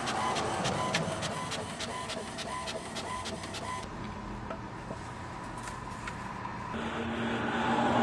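Inkjet printer printing a page, its print head clicking back and forth about four or five times a second; this stops abruptly a little before halfway. Near the end a compact HP photo printer's feed motor hums steadily as it pushes out a printed photo.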